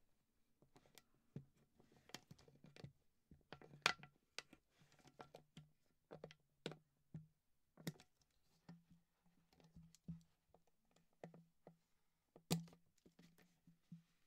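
Faint, irregular sharp clicks and crackles of a plastic pop bottle being cut with a small hobby blade and handled, with two louder snaps about four seconds in and near the end.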